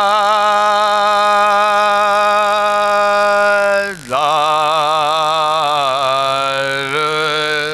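A man's voice chanting soz, a Shia lament sung without instruments, in long held notes with a wavering vibrato. It breaks off for a breath about four seconds in, then takes up a new phrase that shifts in pitch near the end.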